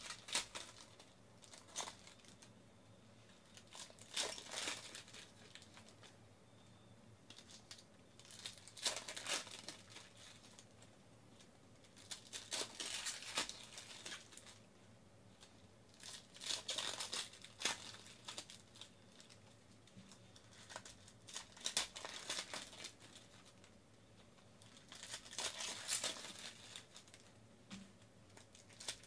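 Plastic trading-card pack wrappers crinkling and tearing as packs are ripped open by hand, in bursts every few seconds with quieter gaps between.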